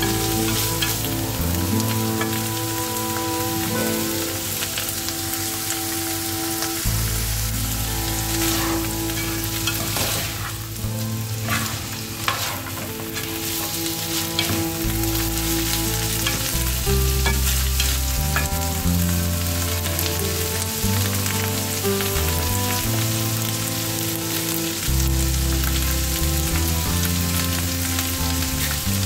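Ground meat, fried onion and cooked split peas sizzling in a frying pan while a plastic spatula stirs and scrapes them around the pan.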